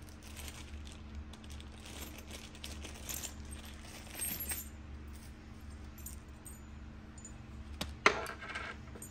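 Small metal tool parts and washers clinking and rattling as they are handled, with one sharp metallic clink about eight seconds in. A low steady hum runs underneath.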